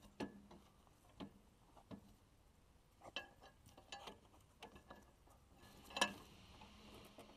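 Faint, scattered metal clicks and clinks from the steel frame and hitch hardware of a Brinly 10-inch moldboard plow being handled and adjusted, with the sharpest clink near the end.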